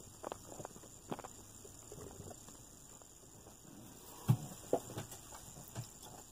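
Light clicks and knocks of small plastic RC car parts and tools being handled on a workbench, scattered through, the loudest a dull knock about four seconds in. A faint steady high hum sits underneath.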